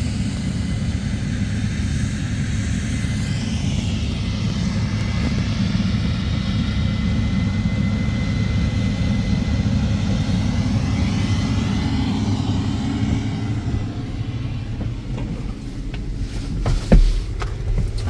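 Case IH combine harvesting soybeans: a steady low engine rumble, with a shifting whoosh above it that slowly sweeps up and down. Near the end come a few sharp knocks and one loud thump.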